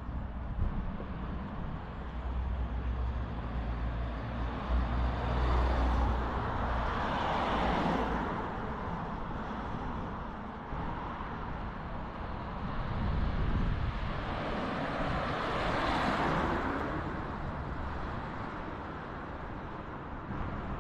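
Road traffic: two cars pass one after another on a town street, each swelling and fading, the first about eight seconds in and the second about sixteen seconds in.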